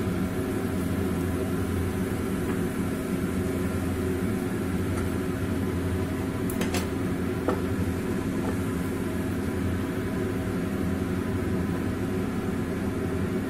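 Cumin seeds sizzling in hot refined oil in a frying pan, over a steady low hum, with a couple of light clicks around the middle.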